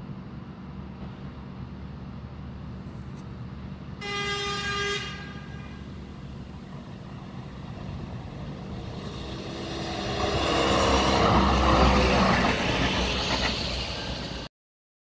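Baltimore Light Rail train sounding its horn once, a steady tone about a second long, then approaching and passing the crossing, growing louder. The sound cuts off abruptly near the end.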